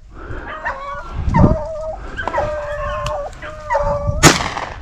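A pack of beagles baying on a rabbit's trail, several dogs giving long, overlapping howling notes. A single sharp, loud bang about four seconds in.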